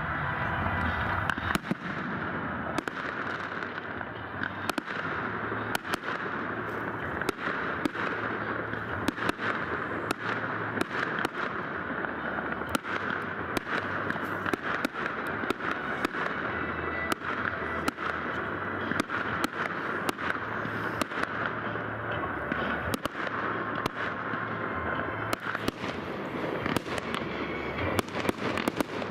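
Fireworks display going off continuously: many sharp bangs at irregular intervals over a steady crackling hiss, with repeated deep booms.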